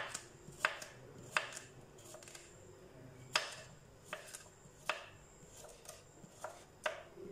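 Kitchen knife slicing a cucumber into thick rounds on a wooden chopping board: about nine sharp knocks of the blade against the board, spaced irregularly, roughly one a second.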